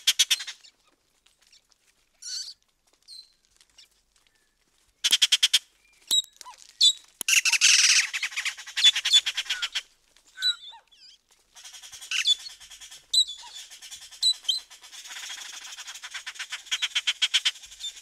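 Yucatan jay calling: bursts of harsh, rapid rattling calls mixed with short squawks, broken by brief pauses.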